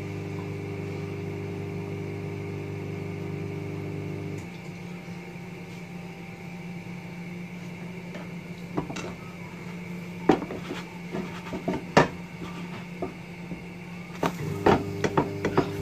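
A kitchen appliance hums steadily, cuts off about four seconds in and starts again near the end. In between come a few sharp knocks of kitchenware, and there is a burst of clattering near the end.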